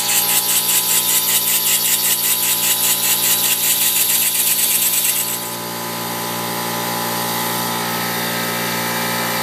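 Homemade single-acting model stationary engine running on compressed air, its exhaust puffing about five times a second. A little over five seconds in, the puffing stops and gives way to a steady rushing noise.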